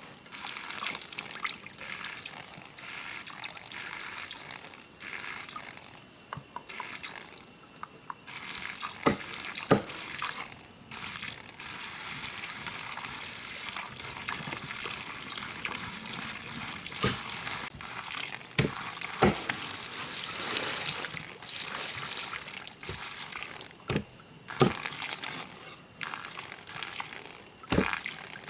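Water running and splashing, a steady hiss, with sharp knocks every few seconds.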